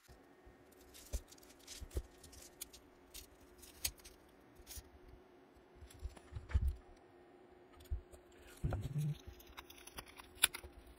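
Plastic comic bags and thin packing tape crinkling and ticking as fingers pick and pry at the tape wrapped tightly around a stack of bagged comics. Scattered small clicks and rustles, with a couple of dull bumps of the stack being handled about six and nine seconds in.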